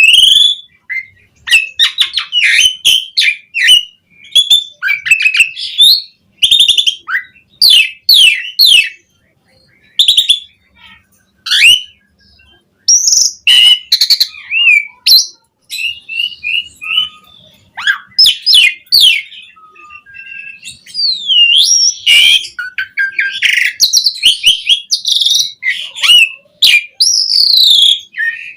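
Asian pied starling (jalak suren) singing a long, varied song packed with mimicked phrases: clear whistles, rapid chattering notes and rising and falling glides, delivered in quick bursts with short pauses.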